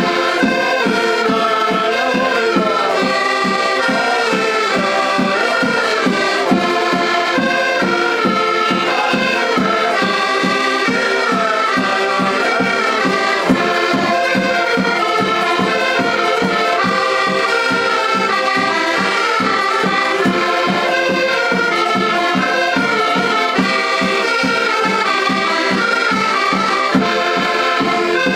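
Several diatonic button accordions playing a lively traditional folk tune together, the melody moving quickly over a steady, even pulse of bass chords.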